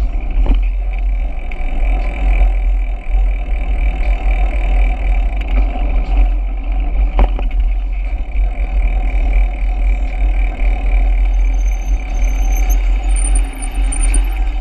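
Wind buffeting the microphone of a camera riding on a moving bicycle, a steady low rumble with road and tyre noise, and two sharp knocks, about half a second and about seven seconds in.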